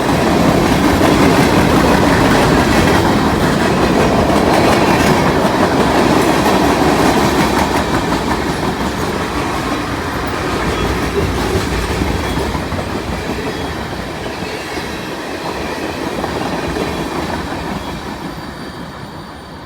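CN freight train's cars rolling past on the rails, a steady rumble and clatter of wheels on track that slowly fades over the second half.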